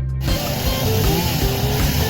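Background music with a melody that glides up and down over a steady low beat.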